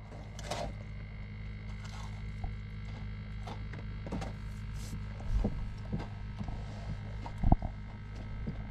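Steady electric buzz of a crab bubbler, a small aerator pump keeping live crabs alive, with a few soft knocks from handling; the loudest knocks come about five and a half and seven and a half seconds in.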